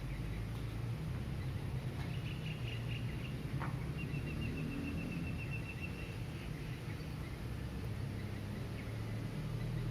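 Low, steady hum of distant city traffic, with a bird's rapid trill of evenly repeated high notes over it: once about two seconds in, and again for about two and a half seconds from four seconds. A single faint click falls between the two trills.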